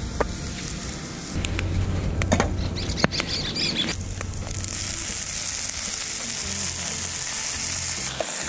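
Pieces of beef flank frying in oil in a pan over a wood fire, sizzling steadily, with a few light clicks of a utensil early on. The sizzle gets louder from about four seconds in, as the meat is seared on each side.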